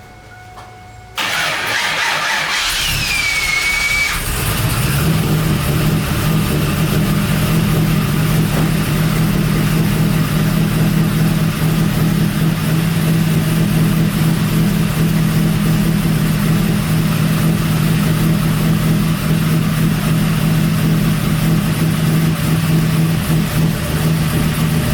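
Pontiac Trans Am's LS1 V8 cranked over and started, with a short falling whine as it catches, then settling into a steady idle.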